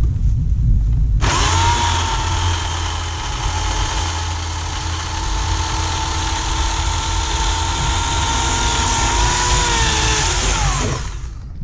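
Bauer 16-inch 14.5-amp electric chainsaw starting suddenly about a second in, its motor and chain whining steadily as it cuts through a tree limb. The whine sags a little under load and then drops in pitch and stops near the end.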